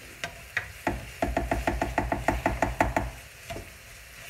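A cooking utensil knocking rapidly against a frying pan full of frying sausage pieces and lardons: a few separate taps, then a quick, even run of knocks for about two seconds, over a faint sizzle.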